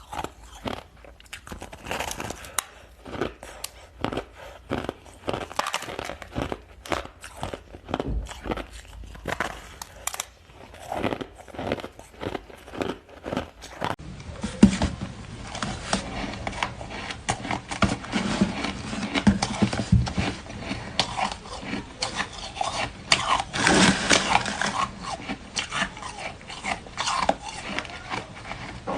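Ice being bitten and chewed: a dense, irregular run of sharp crunches throughout, with the recording changing about halfway through.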